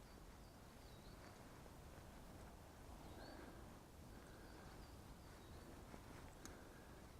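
Near silence outdoors, with a string of faint, short, high chirps from small birds and a faint click about six and a half seconds in.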